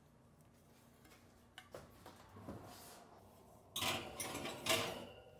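Enamelled baking dish being slid onto a metal oven rack: a faint click, some rubbing, then louder scraping and clattering from about four seconds in.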